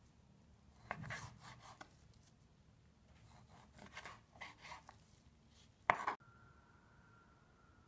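Chef's knife slicing raw meat on a plastic cutting board: soft clusters of cuts and taps about a second in and again around four seconds, with one sharper knock of the blade on the board near six seconds.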